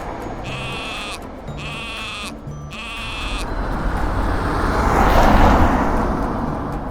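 Railway level crossing warning signal sounding, a high wavering tone alternating with a low one about once a second, stopping after about three and a half seconds. Then the rushing noise of a passing train swells, loudest about five seconds in, and fades.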